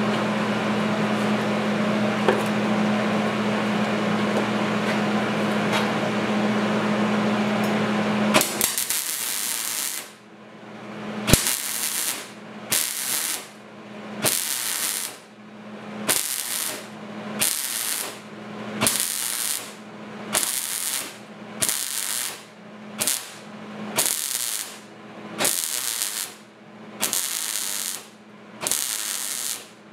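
Wire-feed (MIG) welder tack-welding a thin sheet-steel patch panel: a rapid, even series of short crackling bursts, a little more than one a second, starting about ten seconds in. Before that, a steady hum with a hiss runs for about eight seconds and then stops.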